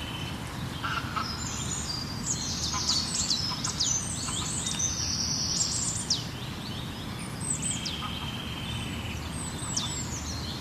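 Several songbirds chirping and singing together, with many quick high chirps, falling sweeps and trills overlapping, over a steady low rumble of background noise.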